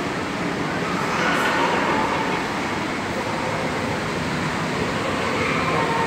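Steady rushing hum of the ambience in front of a large reef aquarium tank, even and unbroken, with no clear nearby event.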